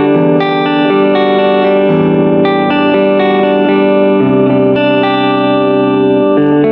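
Aiersi LP19 single-cutaway electric guitar played through an amplifier: a picked melodic line, notes changing every fraction of a second and ringing into one another.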